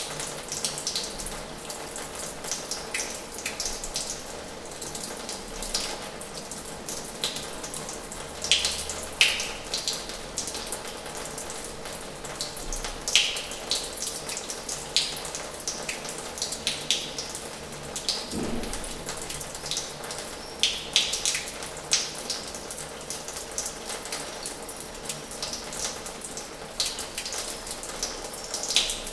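Water running from the tap of an old washhouse and splashing into its basin: a steady rush with irregular spatters and drips.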